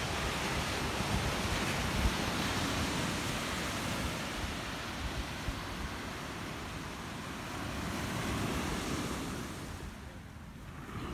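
Surf breaking steadily on a sandy beach, with wind gusting on the microphone. The sound dips briefly about ten seconds in.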